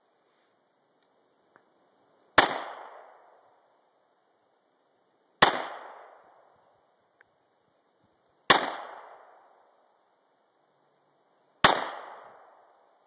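Four gunshots fired at an even, slow pace about three seconds apart, each followed by an echo dying away over about a second.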